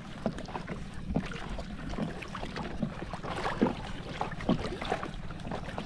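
Sea water lapping and splashing in small irregular slaps against a wooden outrigger boat's hull, with a steady low wind rumble on the microphone.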